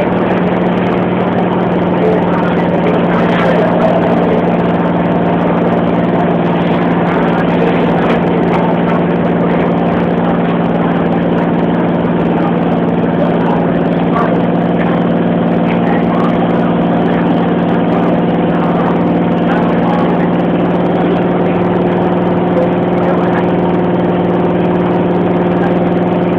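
Mumbai suburban electric local train running, heard from inside the carriage: a steady electric hum over constant running noise.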